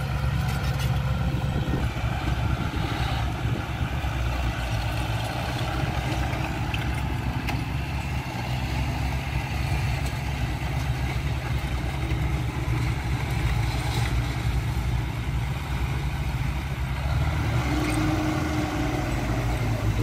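Diesel engines of a small crawler bulldozer and a loaded Hyundai dump truck running steadily under load as the bulldozer pushes the mired truck from behind.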